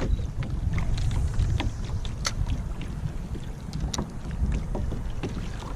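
Wind buffeting the microphone as a low, steady rumble, with scattered light clicks and taps.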